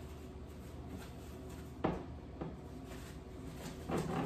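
Two light knocks, about two seconds apart, as a plastic cup and packets are handled and set down on a kitchen countertop.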